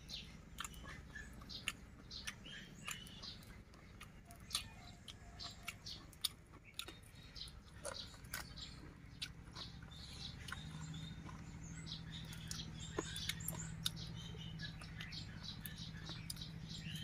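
Close-up chewing and lip-smacking of a person eating roast chicken, with many short wet clicks as meat is bitten and pulled off the bone. A low steady hum comes in about ten seconds in.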